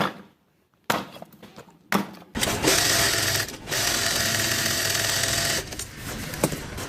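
Three sharp knocks about a second apart, then a small power tool or motorised machine runs with a steady whir for about three seconds, dipping briefly once, before dropping to a quieter clatter.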